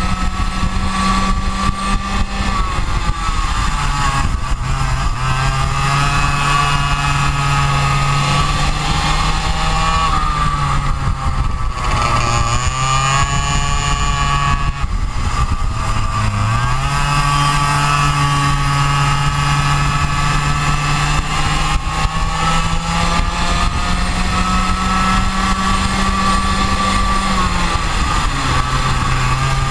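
Go-kart engine running hard through a lap. Its pitch holds high on the straights and drops as the driver eases off, deepest about twelve and sixteen seconds in and again near the end, then climbs back up each time.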